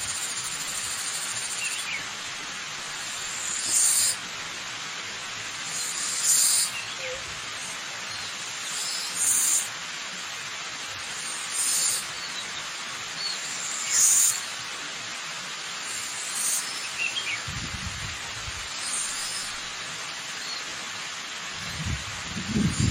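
Steady rushing of a waterfall, with a bird giving short, high chirping calls every two to three seconds and fainter chirps between them. A few low rumbles come near the end.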